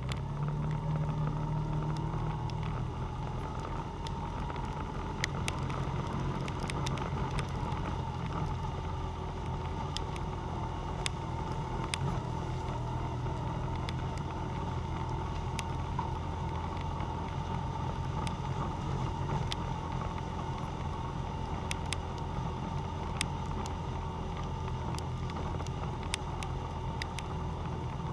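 ATV or side-by-side engine running at a steady pitch under load while climbing a rocky dirt trail, with a steady whine over the engine note. Scattered sharp clicks and knocks run through it.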